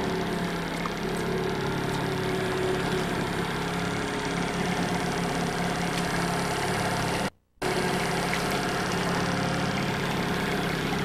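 Boat engine running steadily at trolling speed, heard from on board as an even hum. The sound cuts out for a moment about seven seconds in.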